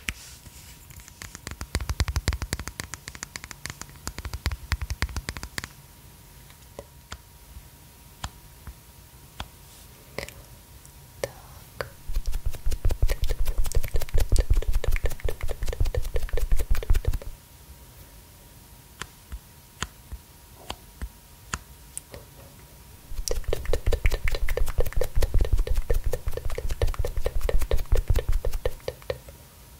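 Rapid dabbing of a makeup sponge against the microphone, in three bursts of several seconds each, every tap with a low thump. Scattered single taps and clicks come in between.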